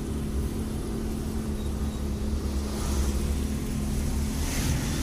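Inside a moving car: steady engine and road rumble in the cabin, with a brief rise of hiss near the end.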